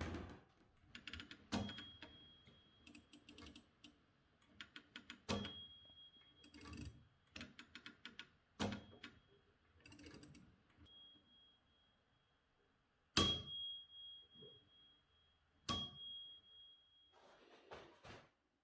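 Typewriter margin bell rung five times by the typewriter's mechanism, each a sharp mechanical strike followed by a clear ding that fades over about a second. Lighter mechanical clicks come between the dings.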